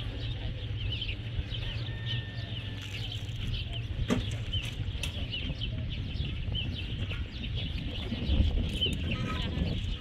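Birds chirping continually in quick, high, short calls, over a low steady rumble. A single sharp knock about four seconds in.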